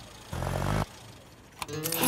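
A small car engine revs briefly for about half a second as the Mini nudges up against the car in front. Near the end come a few sharp clicks of the car door opening.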